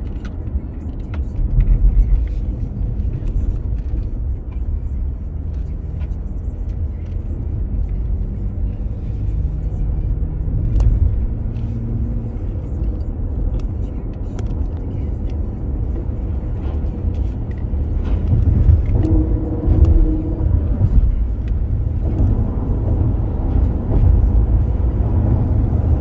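Car driving at traffic speed on an expressway, heard inside the cabin: a steady low rumble of tyres and engine that swells a little about two-thirds of the way through.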